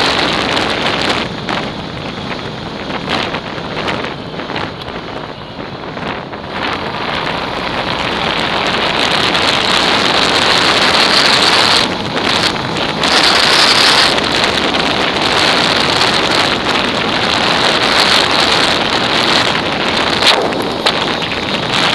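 Wind buffeting the microphone of an action camera on a moving motorcycle, a steady rush of noise that covers the engine. It grows louder about a third of the way in, with two short dips near the middle.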